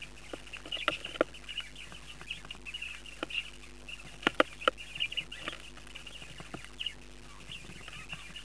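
Budgie chicks cheeping steadily in a nest box, mixed with sharp taps and scratches of the birds moving, the loudest about a second in and twice a little before the middle.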